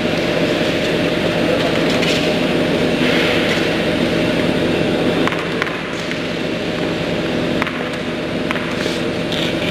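Steady background noise of an indoor tennis hall, dense and low-pitched, with a few faint sharp ticks.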